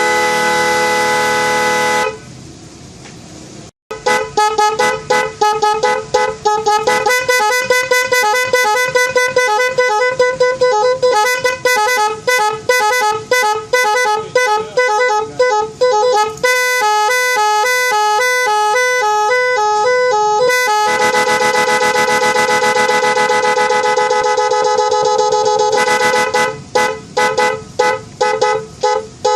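Snail-type electric car horn sounding through a series of patterns: a held blast, then a long run of rapid short honks, a quick two-pitch warble, another long steady blast, and short honks again near the end.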